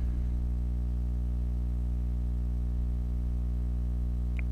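A steady low hum with several even overtones, unchanging in pitch or loudness.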